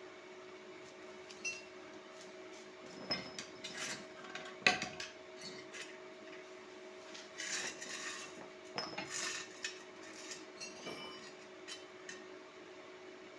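Scattered clinks, knocks and clatter of hard objects being handled, with one sharp knock about five seconds in, over a steady low hum.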